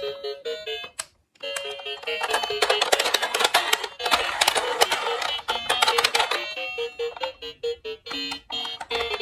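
Toy ambulance's electronic sound chip playing short beeping tunes and sound effects as its roof buttons are pressed. The sound cuts out briefly about a second in, then a denser, noisier effect runs through the middle before the beeping tune returns.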